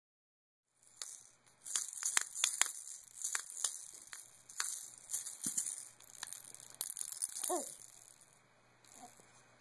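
Baby rattles being shaken by hand: irregular bursts of rattling from about a second in, dying away after about seven seconds.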